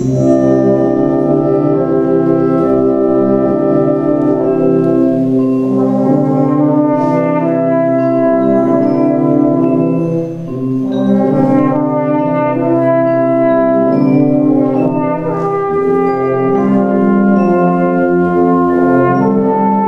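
Fanfare band of brass and percussion playing full, sustained chords. The sound eases briefly about halfway through, then swells again with a few percussion strokes.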